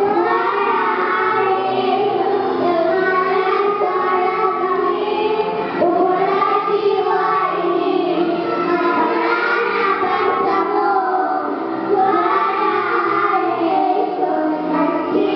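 Young children singing together over musical accompaniment, the sung phrases running continuously with short breaths between lines.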